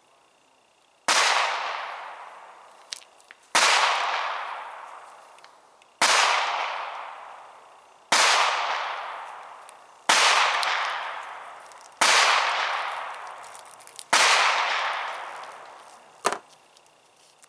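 Seven gunshots from elsewhere on the shooting range, about two seconds apart, each ringing out in a long fading echo. A short sharp click comes near the end.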